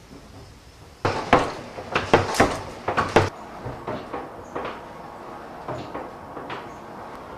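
A quick run of loud, sharp knocks and clatters starting about a second in, followed by lighter scattered clicks and taps.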